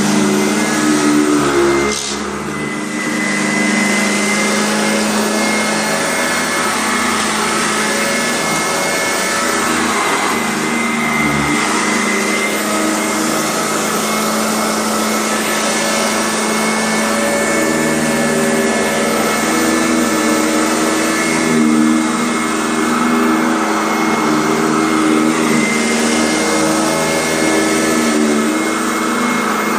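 Kent EUROCLEAN vacuum cleaner running steadily while vacuuming, its motor giving a steady whine with a high tone over a lower hum, dipping briefly about two seconds in.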